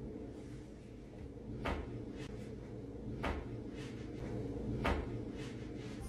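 Three sharp pops about a second and a half apart as a foot presses down on a person's back in Thai massage: the back's joints cracking under the weight.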